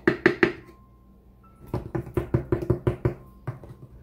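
Flour being measured into a glass mixing bowl: a plastic measuring cup and a knife knock against the bowl. There are three quick knocks at the start, then a fast run of about ten knocks from just under two seconds in, and a last one near the end.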